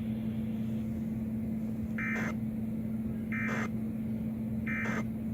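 EAS end-of-message data bursts: three short, identical digital screeches about 1.3 seconds apart, closing the severe thunderstorm warning, over a steady low hum.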